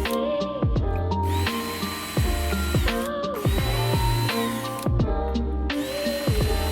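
Electronic background music: a looping pattern of held synth notes over a bass line, with short falling-pitch drum hits and a bright held tone that repeats about every two seconds.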